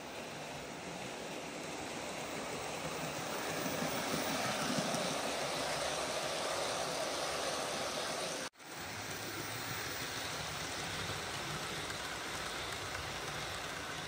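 OO gauge model train running on the track, a steady rumble of wheels on rail that builds to its loudest about halfway through the first part, breaks off abruptly a little over eight seconds in, then carries on.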